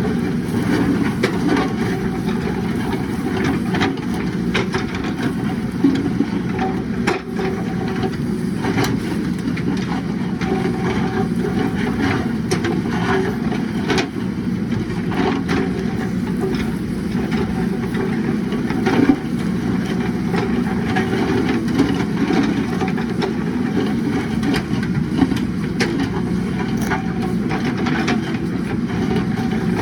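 JCB 3DX backhoe loader's diesel engine running steadily while it works, with occasional short clanks and knocks.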